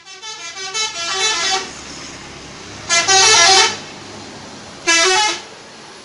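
Telolet musical bus horn, several horn trumpets sounding in sequence: a quick run of short notes changing pitch in the first second and a half, then a longer blast about three seconds in and a shorter one about five seconds in. A steady low engine and street noise runs between the blasts.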